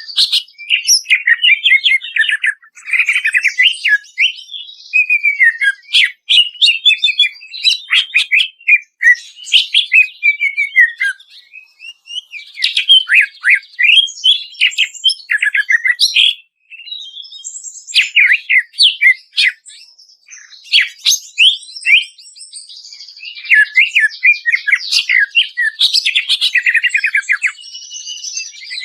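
Green leafbird (cucak ijo) singing a fast, varied song of rapid chirps, trills and whistled notes, delivered as a masteran training track. The song pauses briefly a little past halfway, runs sparser and quieter for a few seconds, then turns dense again.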